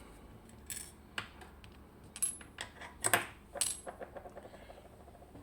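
Small metal lock parts and tools clicking and clinking during disassembly of a Miwa EC lock cylinder: about six sharp clicks over the first four seconds, two of them with a brief high metallic ring, then a faint quick rattle.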